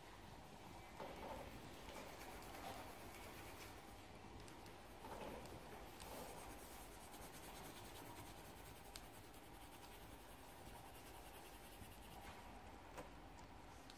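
Faint scratching of a colouring tool on paper as a drawing is coloured in by hand, with a few slightly louder strokes.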